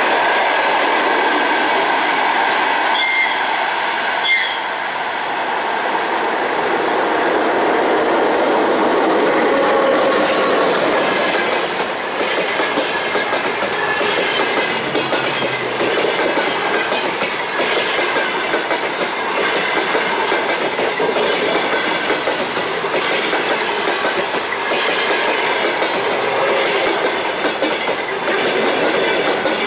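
Two passenger trains passing on adjacent tracks, their coach wheels clacking steadily over the rail joints with rolling rail noise. A brief high wheel squeal comes a few seconds in.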